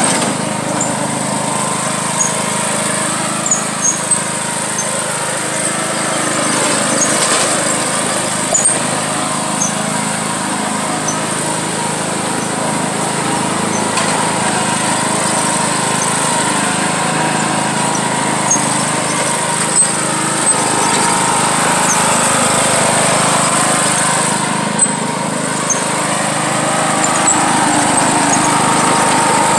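John Deere riding lawn mower engine running steadily while it tows a rider on a board over dirt and grass, with a few sharp clicks now and then.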